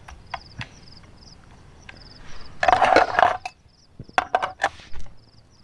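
A metal spoon scraping cooked food across a camping frying pan: one loud scrape with a short metallic ring midway, then a few quick clinks of the spoon against the metal cookware.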